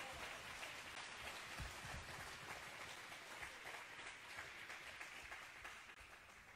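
Spectators applauding a point won in a table tennis match, the clapping dying away near the end.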